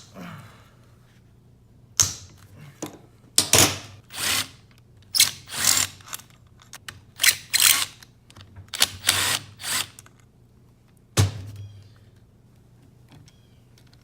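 A ratchet wrench loosening the 12 mm bolts holding the throttle body on a Subaru EJ25 engine, clicking in about ten short bursts. A single knock follows a little later.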